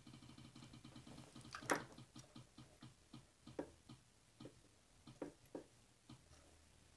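Spin-the-wheel app on a tablet ticking faintly as its wheel spins: rapid ticks that slow down and space out, stopping about six seconds in as the wheel comes to rest.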